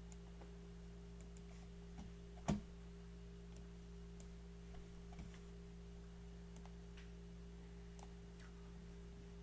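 Quiet room tone with a steady low electrical hum and a few faint scattered clicks; one sharper click comes about two and a half seconds in.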